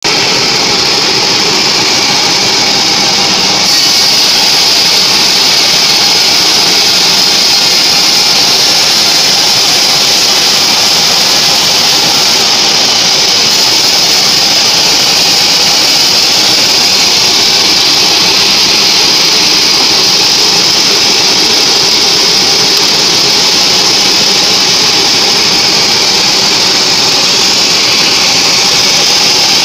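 Log band sawmill cutting through a mahogany log: a loud, steady high-pitched whine and hiss from the blade in the wood, getting louder about four seconds in.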